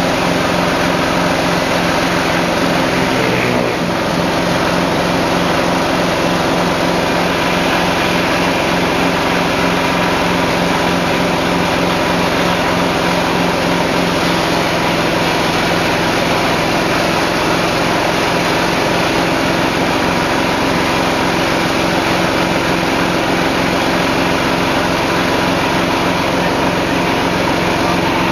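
Animal-feed chopping machine (crusher) running steadily: a loud, even mechanical drone with a steady hum, dipping briefly about four seconds in.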